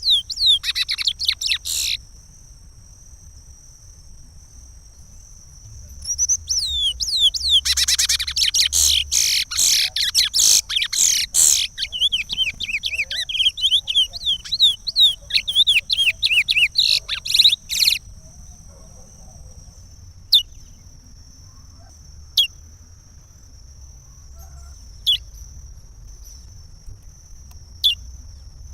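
Curió (chestnut-bellied seed-finch) singing the Pará regional song: a short phrase of quick whistled notes that ends about two seconds in, then after a pause a long fast run of gliding whistled notes lasting about twelve seconds, followed by four single short chirps a few seconds apart. A faint steady high tone runs behind it.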